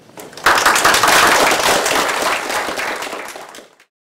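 Audience applauding: many hands clapping at once, starting about half a second in and fading out near the end.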